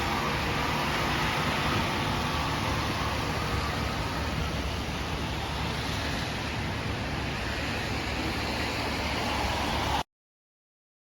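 City bus driving, a steady rush of road and engine noise that cuts off abruptly about ten seconds in, leaving dead silence.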